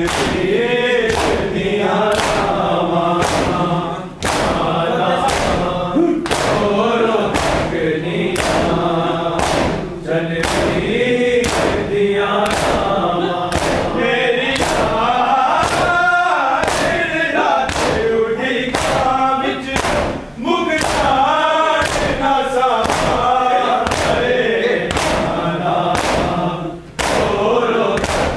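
A group of men chanting a noha lament in chorus, with the loud unison slap of open hands beating on chests (matam) about once a second.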